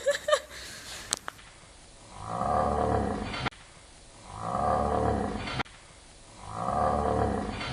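A growling roar, three times over, each about a second long and cut off abruptly, the three alike.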